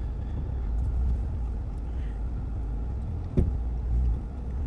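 Ford Bronco's engine running low and steady as the truck creeps forward over rocks at crawling speed, with one sharp knock about three and a half seconds in.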